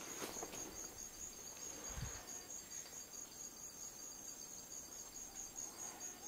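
Rainforest insects trilling: a steady, high-pitched pulsing trill with a fainter second trill just below it. A soft low thump comes about two seconds in.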